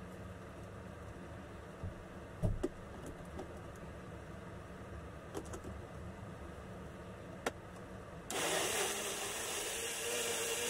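A few clicks and a knock as the plastic blending cup is handled and seated on its base, then about eight seconds in a Midea personal blender's motor switches on and runs loudly and steadily, blending a fruit drink.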